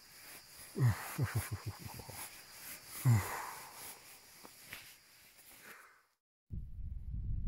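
A man groaning twice, each groan falling in pitch, about a second in and about three seconds in; the first trails into a short run of rough pulses. After a moment of silence near the end, low rumbling wind buffets the microphone.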